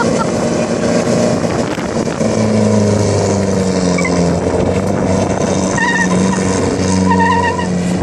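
Toyota Crown sedan doing a burnout, its engine held at high revs that rise and fall while the rear tyres spin and squeal on the tarmac. Short, sharper tyre squeals stand out twice near the end.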